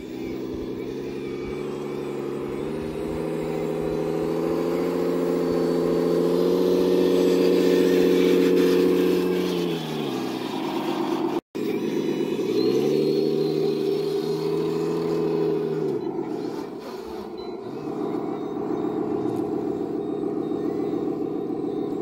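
Radio-controlled 1/14-scale dump truck driving, its engine drone stepping up in pitch as it speeds up and dropping away as it slows, twice over. A brief dropout about halfway separates the two runs, and after the second a rougher, steadier running sound remains.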